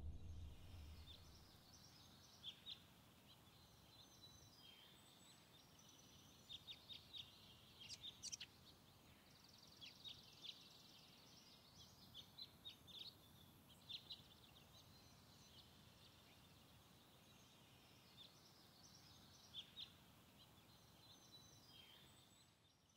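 Faint birdsong: scattered short, high chirps and a brief buzzy trill from small birds, over quiet outdoor background. A low sound fades out in the first two seconds.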